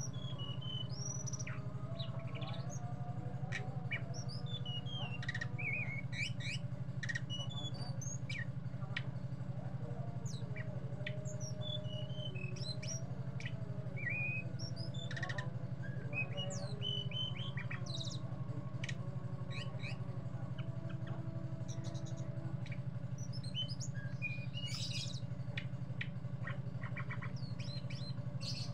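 Caged tledekan gunung songbird singing continuously: a rapid, varied run of short chirps, twitters and whistled sweeps. A steady low hum runs underneath.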